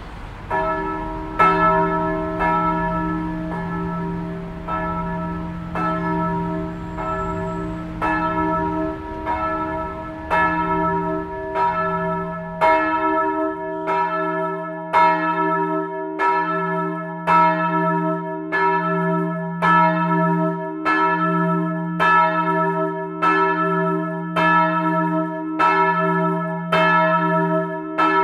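Swinging church bell heard from directly beneath it in the belfry, its clapper striking about once a second, each stroke ringing on into the next over a steady low hum. The ringing starts about half a second in.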